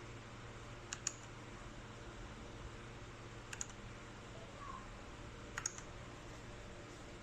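Keyboard keys fitted with PBT pudding keycaps pressed three times, each press a sharp double click, over a faint steady low hum.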